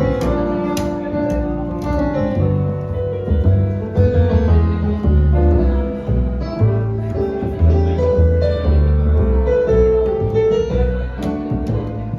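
Instrumental music, with piano notes held over a bass line that moves every second or so.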